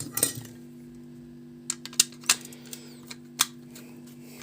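Small parts of an electric sewing-machine foot pedal being handled and fitted into the pedal housing: a few sharp clicks and taps, over a steady low hum.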